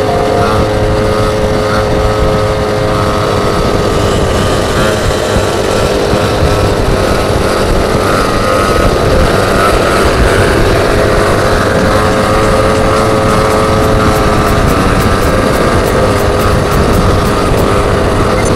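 Small petrol engine of a goped scooter running under way, its pitch easing down and climbing back up a few times as the throttle changes.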